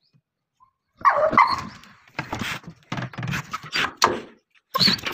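Pitbull barking and whining in a rapid series of short bursts, starting about a second in.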